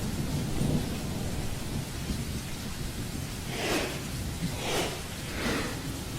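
Steady low rumble under a noisy hiss, with a few swelling whooshes about a second apart starting a little past halfway.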